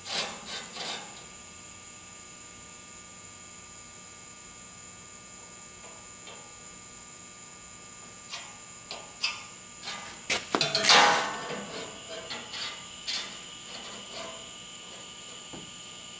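Small clicks and scrapes of a pen, straightedge and tape measure being handled on a steel plate while marking out a layout, over a steady electrical hum. The scraping clusters in the second half, the loudest a short scrape of about half a second.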